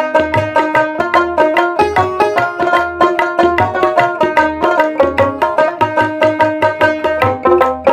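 Background music: a fast melody on a plucked-string instrument over a steady low drum beat.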